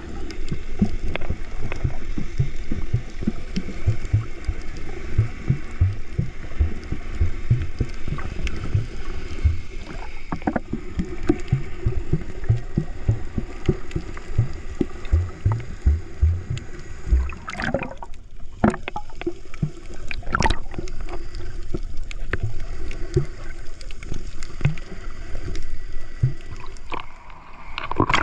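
Muffled underwater audio from a waterproof action camera while snorkeling: water sloshing and buffeting the housing in irregular low thuds over a steady low drone. A few sharper splashes come about two-thirds of the way through.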